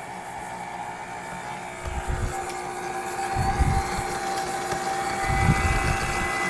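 Electric stand mixer running, its motor giving a steady whine with low thudding spells as the beater works through butter and sugar being creamed. About five seconds in, a high steady electronic tone joins it: the oven signalling that it has preheated.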